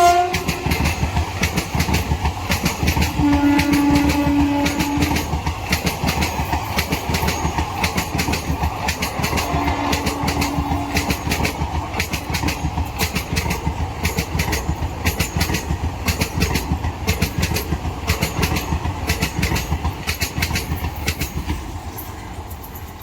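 Express train coaches passing at speed through a station without stopping, their wheels clattering rapidly and rhythmically over the rail joints. Two brief faint tones sound over the clatter a few seconds in and around ten seconds in. The clatter fades as the train draws away near the end.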